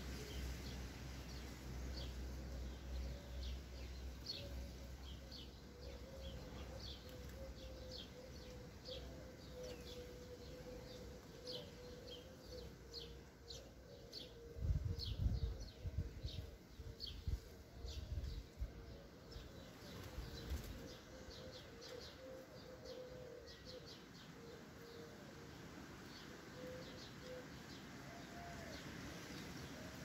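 Sparrows chirping at a feeder: many short, high chirps in quick succession, thinning out after about two-thirds of the way through. About halfway through comes a cluster of louder low thumps, and a faint steady hum runs underneath.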